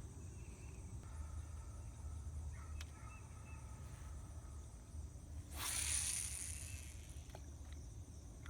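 Crickets and other insects chirring steadily. About five and a half seconds in, a brief rushing whoosh lasts about a second.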